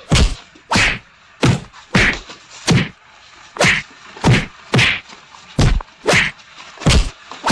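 Punches in a staged fist fight: a rapid series of loud whacks, about a dozen of them, roughly one every two-thirds of a second.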